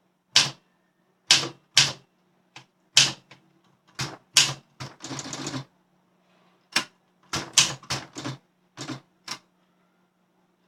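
A 1961 Olympia SM7 manual typewriter being typed on: separate sharp key strikes at an uneven pace, with a short rapid rattle about five seconds in.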